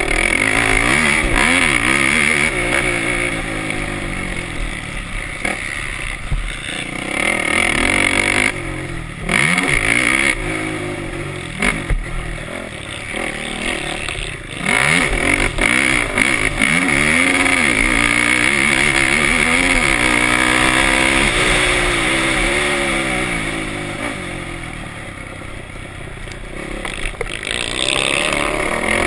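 Off-road race engine at racing pace, heard from the on-board camera: the revs climb and fall again and again with throttle and gear changes. There are brief drops in the sound about nine and fourteen seconds in, and an easing off for a couple of seconds near the end before it picks up again.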